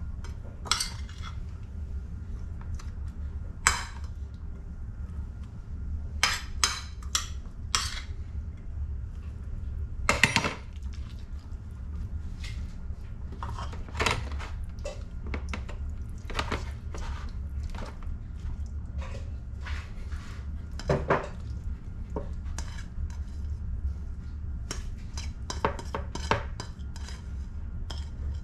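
A metal spoon and a ceramic plate clinking and scraping in scattered, irregular knocks as chopped vegetable filling is scooped and pushed into a raw fish, over a steady low hum.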